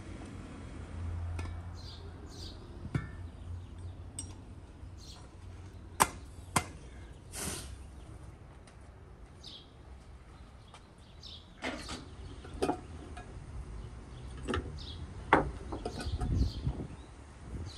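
Scattered sharp knocks and clicks of objects being handled, loudest about six seconds in and again near the end. Faint short bird chirps come now and then over a low steady hum.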